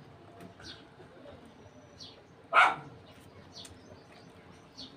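A single sharp dog bark about two and a half seconds in, with a few faint, short, high bird chirps now and then.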